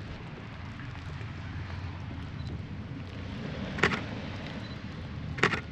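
Two short, sharp camera shutter clicks, one about four seconds in and one near the end, over a steady low rumble.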